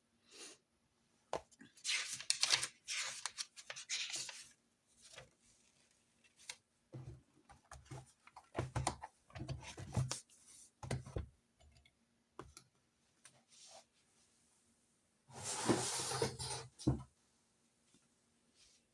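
Paper and stationery handled on a desk: two spells of paper rustling, the first about two seconds in and the second near the end, with soft knocks and taps between them.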